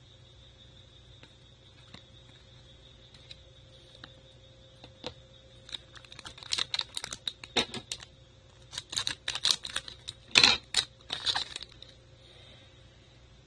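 Trading cards and their plastic packaging handled by hand: a few faint ticks, then a run of quick, crisp clicks and rustles in the second half, the loudest about ten seconds in.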